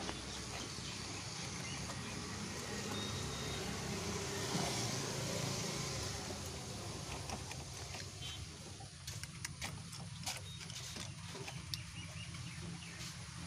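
A vehicle engine running steadily with a low hum, with a scatter of light clicks and taps in the second half.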